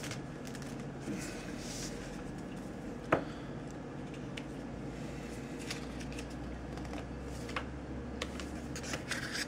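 Hands handling the card-sized packaging of a Cardsharp wallet knife: scattered light rustles and clicks, one sharper click about three seconds in, over a steady background hum.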